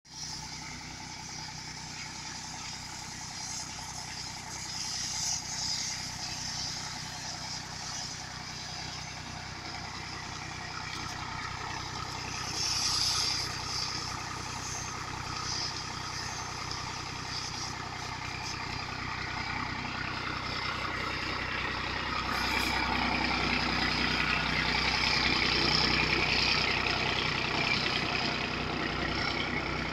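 Farm tractor's diesel engine running steadily, powering the pump for a pressure-washing water jet, with a steady hiss over it. It grows louder in the last third.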